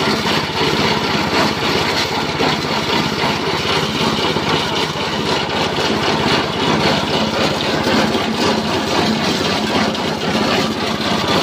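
Small petrol engine running a chopper-grinder machine at steady speed while rice husk is fed in and milled, giving a dense, steady crackling noise over the engine.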